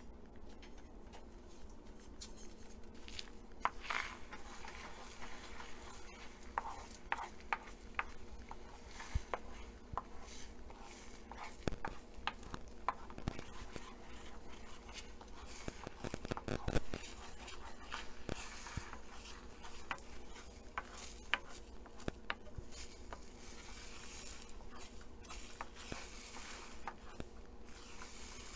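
Egg-and-milk omelette mixture frying in a pan with a faint sizzle, while a wooden spatula stirs it, tapping and scraping against the pan many times, with a cluster of taps about two-thirds through.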